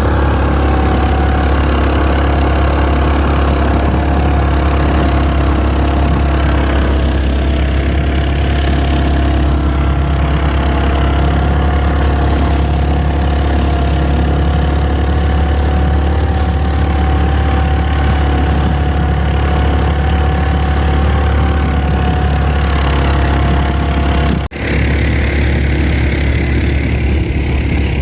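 A motor vehicle engine running steadily, a low drone with a constant whine above it. About three-quarters of the way through, the sound drops out for an instant and then picks up again.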